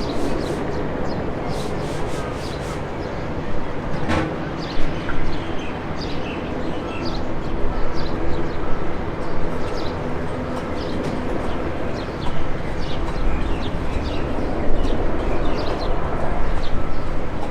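Steady rumble of aircraft engines across an airfield, with many short high chirps scattered over it and a sharp click about four seconds in.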